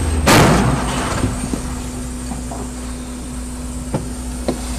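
A loud crash about a third of a second in as a skidding Volvo semi-tractor strikes the car, then the steady low rumble of the vehicle with a faint hum and a couple of small knocks near the end.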